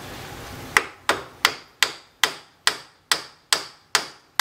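Hammer tapping metal at an even pace, about two and a half sharp taps a second with a short ring after each, starting just under a second in: a new tapered roller wheel bearing being drifted down onto a Ford Festiva front hub spindle.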